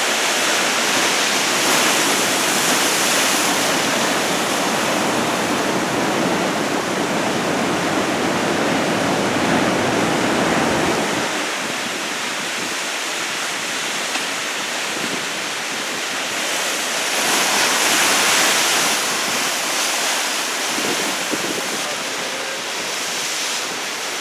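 Large typhoon-driven ocean waves breaking and rushing, a continuous roar of surf that swells and eases.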